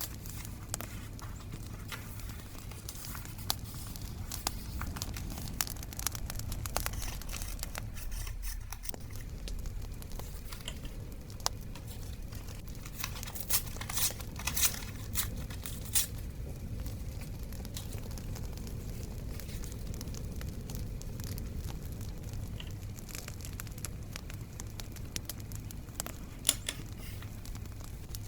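Paper being handled for journaling: crinkling and tearing, with scattered sharp crackling pops from a bonfire sound over a steady low rumble. The pops come in a cluster about halfway through and again near the end.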